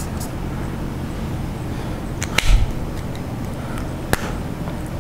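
Steady low room hum, with a sharp click a little over two seconds in followed by a soft thump, and another sharp click about four seconds in.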